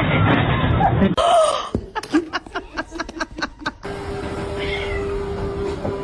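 Domestic cat vocalizing across quick cuts: a rapid run of short cries, about six a second, then a single short falling meow over a steady hum.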